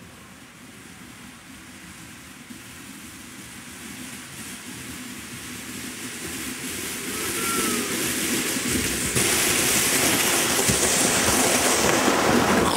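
A plastic kayak used as a sled, carrying riders down a snowy slope, its hull hissing over the snow and growing steadily louder as it approaches. In the last few seconds, as it comes close, the rush gets stronger and picks up low thumps.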